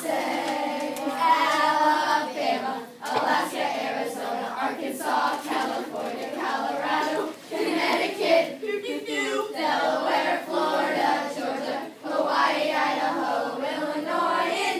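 A group of children chanting and singing a rap of the US states in unison, with short breaks every four or five seconds.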